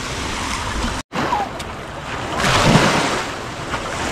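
Small river waves washing in on the beach: a steady rush of water that swells twice, about halfway through and again at the end. The sound cuts out completely for a moment about a second in.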